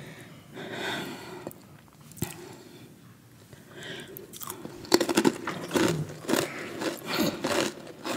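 Crunchy snack chewed close to the microphone, with loud crisp crunches starting about five seconds in.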